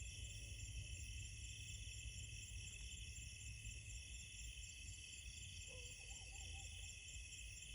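A steady night-time chorus of crickets and other insects trilling in several high-pitched layers, with a faint low rumble underneath. About six seconds in, a faint, brief wavering call rises over it.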